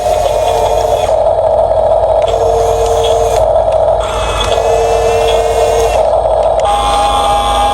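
Electric motors and gearboxes of radio-controlled toy construction vehicles (Huina bulldozer and dump truck) whining steadily, with tones cutting in and out every second or so as the motors start and stop. A higher whine joins near the end.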